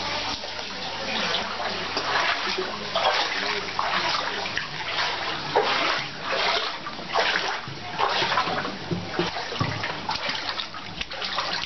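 Floodwater splashing and pouring, a continuous rush with irregular surges.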